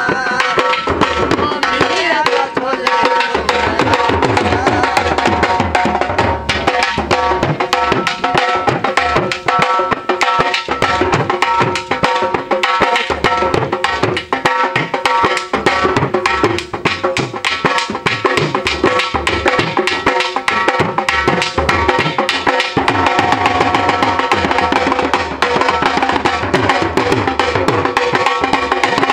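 Several Punjabi dhol drums beaten fast and continuously with sticks in a driving dance rhythm. A steady ringing tone sounds behind the beats.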